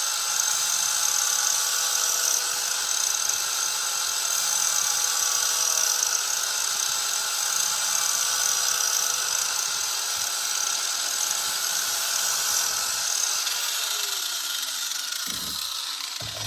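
Handheld electric angle grinder grinding the cutting edge of a steel lawn mower blade: a steady, high-pitched grinding whine. Near the end it is let off and its pitch falls as the disc spins down.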